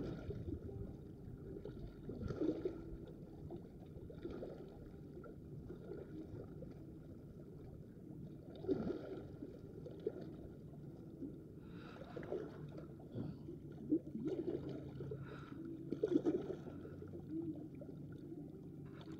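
Small waves lapping and gurgling among shoreline rocks, with a low steady background and a few brief, soft swells of washing water.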